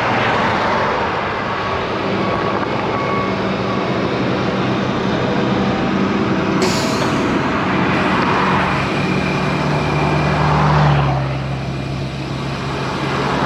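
Road traffic passing a moving bicycle, with several vehicles, including what sounds like a truck, swelling up and fading as they go by, over steady wind rush on the microphone. There is a brief sharp hiss about halfway through.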